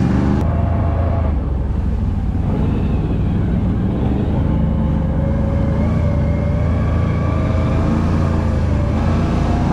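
ATV engine running under way on a dirt trail, heard from the rider's seat, its pitch drifting up and down a little with the throttle.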